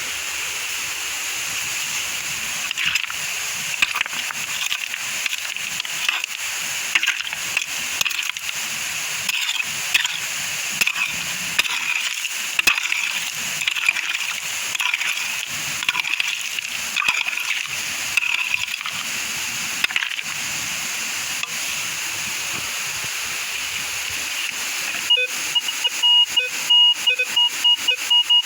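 Steady rush of a waterfall and stream, with irregular splashing and sloshing in shallow water. Near the end comes a rapid run of electronic metal detector beeps, several pitches at once, signalling a metal target.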